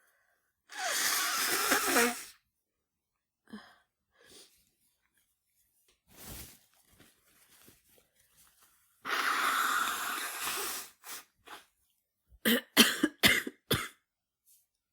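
A woman with the flu coughing: a quick run of four or five short coughs near the end. Earlier there are two longer, harsh blasts of breath, about a second in and about nine seconds in.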